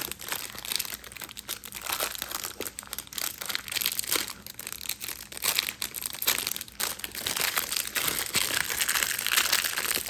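Plastic packaging crinkling and rustling in continuous irregular crackles as a fidget toy is worked out of its wrapper, which is hard to get open.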